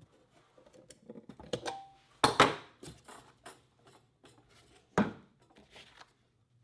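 Pliers working the steel strap and seal on a wooden ammunition crate: a run of small metallic clicks and scrapes, with two loud clatters, one a little over two seconds in and another about five seconds in, as the strap and lid are worked free.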